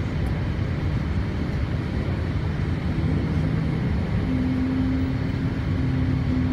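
Steady cabin noise inside a Boeing 787 airliner descending on approach: a low, even rumble of engines and airflow. A low steady hum joins about two and a half seconds in, and a second, slightly higher one about four seconds in.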